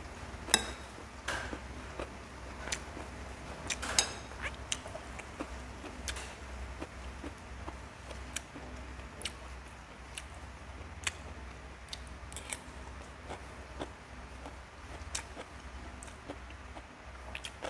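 Metal spoon clinking and scraping against a ceramic plate while eating fried rice: irregular single clicks every second or so, a couple with a short ring, over a low steady hum.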